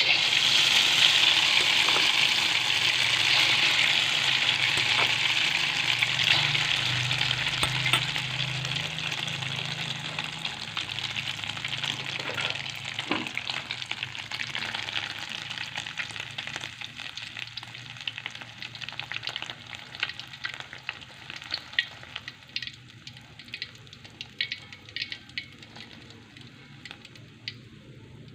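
Egg for a telur dadar omelette frying in hot oil: a loud sizzle that starts suddenly, then gradually dies down into scattered crackles and pops.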